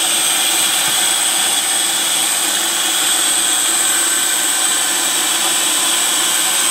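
Food processor running steadily, its whisk attachment whipping eggs for a Swiss-roll sponge batter. An even motor noise with a thin, high, steady whine on top.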